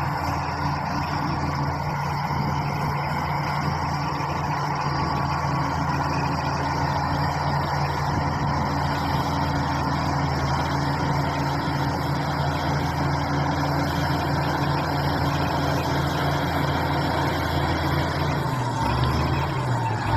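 Shantui SD16 bulldozer's diesel engine running steadily under work. Near the end the engine note dips and then shifts.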